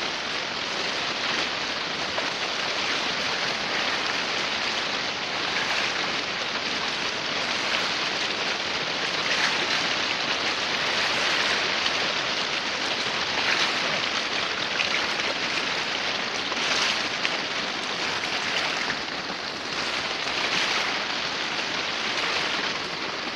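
A swollen, muddy river rushing over stones, a steady loud rush of water with brighter surges of splashing as someone wades through it thigh-deep.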